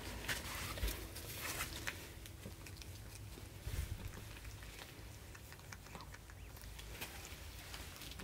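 Scattered soft clicks and rustles as a mother cat licks her newborn kittens and gloved hands handle them.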